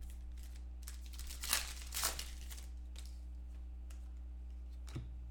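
Trading cards and foil pack wrappers being handled, with rustling and crinkling a second or two in and a light click near the end, over a steady low hum.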